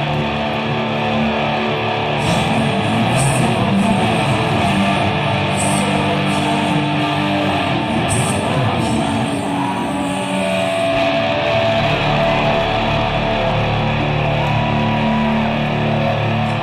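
Live rock band playing loud, with a distorted electric guitar and drums. Cymbal crashes come at several points in the first half. From about eleven seconds in, long held guitar notes ring on steadily.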